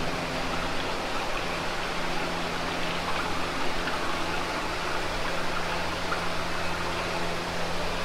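Steady rushing of water-like noise, even and unbroken, with a low steady hum beneath it: the ambience of the boat ride's dark show scene.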